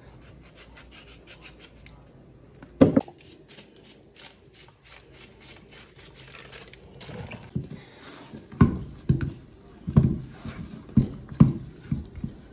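Hands kneading and slapping flour dough for dumplings in a heavy black pot: quiet rubbing at first, one sharp knock about three seconds in, then a run of irregular dull pats and thumps from about halfway on.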